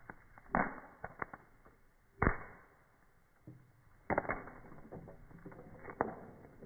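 Popcorn kernels popping in a cast iron skillet over a wood fire, heard slowed down: scattered single pops at irregular gaps, with a quick cluster of three about four seconds in.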